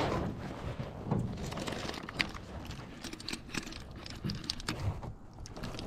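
Handling noises of a spinning rod and reel in an aluminum boat: scattered small clicks and light knocks over a faint hiss.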